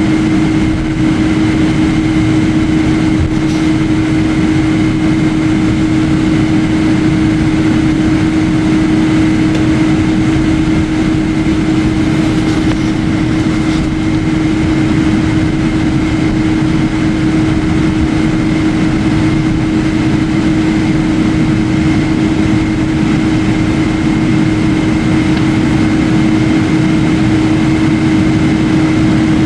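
Steady jet airliner cabin noise: a constant rumble of engines and airflow with a steady hum and a fainter high whine, heard inside the passenger cabin.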